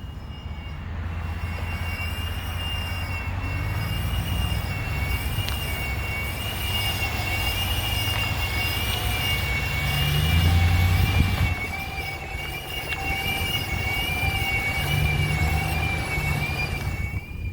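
A 2017 Ram 1500 pickup making a high-pitched whine: two close tones held steady with a slight waver, over a low engine rumble that swells about two-thirds of the way through.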